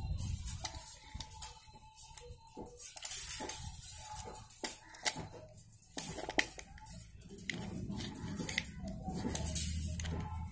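Irregular light clicks and scrapes of a thin metal blade working at the edge of a plastic tape-measure case.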